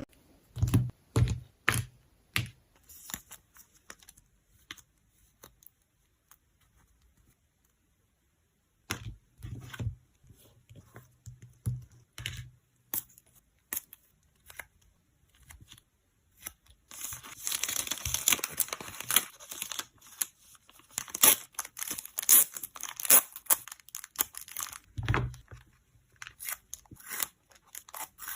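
Close-up handling of photocard packing materials: scattered taps and clicks of cards and plastic sleeves, a short pause, then a few seconds of plastic packaging crinkling and tearing, followed by more light taps.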